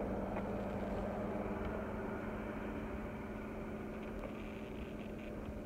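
Vehicle engine idling, a low even hum with one constant low tone.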